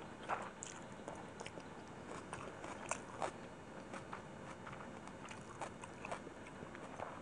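Close-miked mouth sounds of someone chewing a mouthful of chicken biryani: irregular soft wet clicks and crackles, the strongest about a third of a second in.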